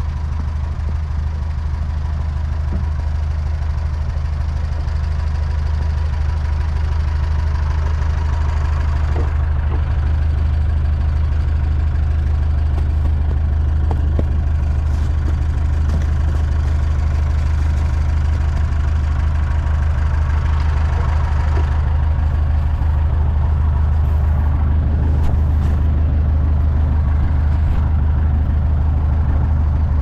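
Tractor engine idling steadily, a constant low even-pulsed running sound with a few faint knocks and scrapes over it.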